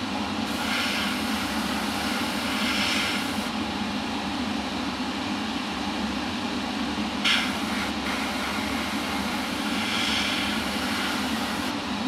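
Harder & Steenbeck Infinity CR Plus airbrush hissing in two short spells of spraying, over a steady low mechanical hum. A short sharp sound comes about seven seconds in.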